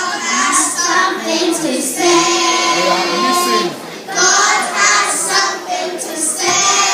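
Children singing an anthem together, with one long held note a couple of seconds in.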